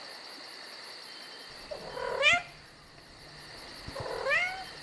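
Domestic cat meowing twice, about two seconds in and again near the end, each call rising in pitch, over a steady chirping of crickets.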